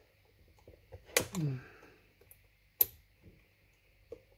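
Plastic clicks and handling of a wire plug being pressed and pulled off a coffee maker's control circuit board: a click with a short grunt of effort about a second in, and a sharp click near three seconds in.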